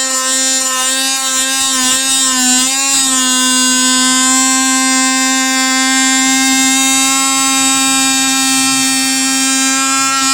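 Metabo MT18LTXSK cordless oscillating multi-tool running with a steady high buzz, its pitch sagging briefly about two to three seconds in.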